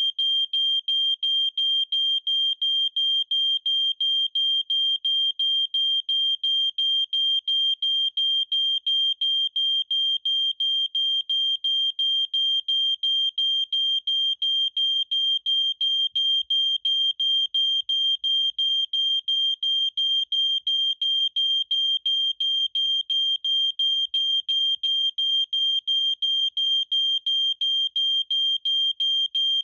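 Prosafe photoelectric smoke alarm sounding its alarm: a loud, high-pitched tone pulsing rapidly and evenly without a break. It has been set off by deodorant spray in a test of its smoke sensing.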